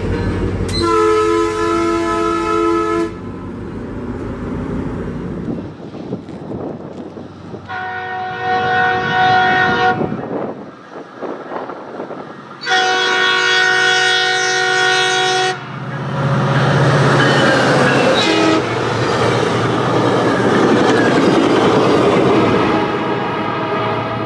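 Metrolink MPI MP36PH-3C locomotive sounding its Nathan Airchimes air horn: three separate multi-note chords, one near the start, one about eight seconds in and a longer one around thirteen seconds in. After that the loud rumble and rail noise of the train passing, over a low steady engine hum.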